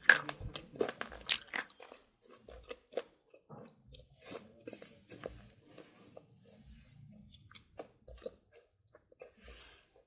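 Slate pencil being bitten and chewed: two loud, crisp crunches in the first two seconds, then quieter, irregular crunching as the pieces are chewed.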